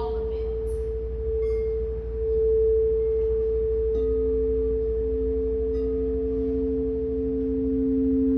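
Frosted crystal singing bowls played with a mallet: one bowl's steady pure tone rings throughout, and a second, lower bowl comes in sharply about halfway through and sustains alongside it.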